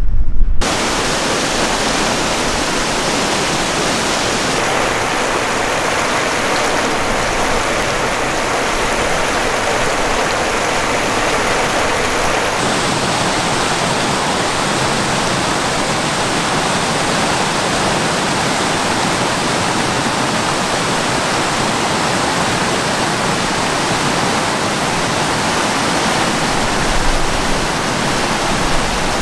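Water rushing steadily over small falls and cascades between boulders at a lake outlet. The tone of the rush shifts slightly twice, a few seconds in and again near the middle.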